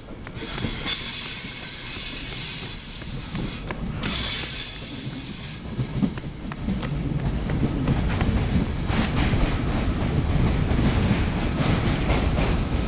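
ÖBB passenger coaches of a departing train, their wheels squealing high in two long stretches over the first six seconds. The squeal then gives way to a low rolling rumble with clacks of the wheels over rail joints and points.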